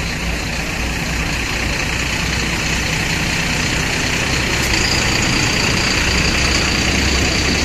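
Sleeper bus engine idling at a roadside stop: a steady low rumble with engine noise throughout. A faint high whine joins about five seconds in.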